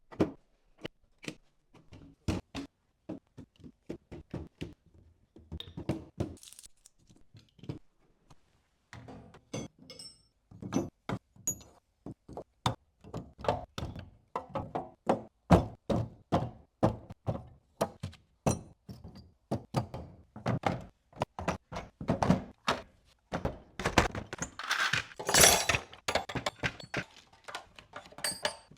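Tools being put away into a toolbox: a long run of irregular knocks, clunks and clinks as items are set down and handled, getting busier in the second half, with a longer scraping rattle about three quarters of the way through.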